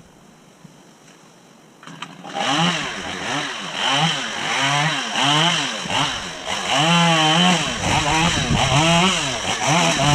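Two-stroke chainsaw, quiet for about two seconds, then throttled up and down over and over, its pitch rising and falling about once a second while it cuts branches.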